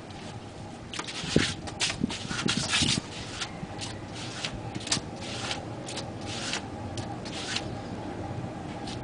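A run of short scraping rubs as the potter's foot pushes against the rim of a large foot-spun potter's wheel to keep it turning. The rubs come irregularly and stop about two-thirds of the way through.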